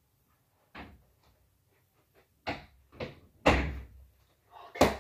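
A bedroom door being shut: a series of knocks and thuds, five in all, the loudest a slam about three and a half seconds in.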